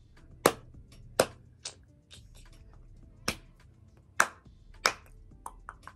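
A person's hands making sharp snaps, about six loud ones at uneven gaps, with a few softer ones near the end.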